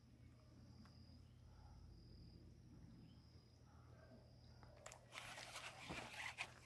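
Near silence with a faint insect chirp repeating at a high pitch. About five seconds in, a rough, scratchy noise with a few sharp clicks begins and grows louder as a traíra takes the frog lure and the fishing rod bends under the strike.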